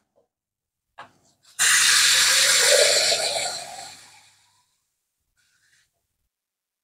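A faint click, then water poured into a stainless steel pot for about two seconds, fading out.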